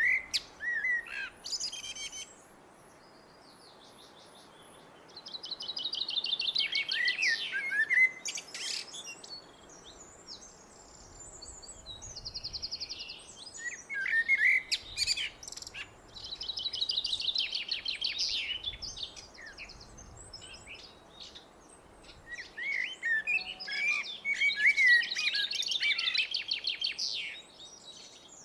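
Blackbird singing: several separate song phrases with pauses between them, each mixing lower fluty warbled notes with a higher, rapid twittering.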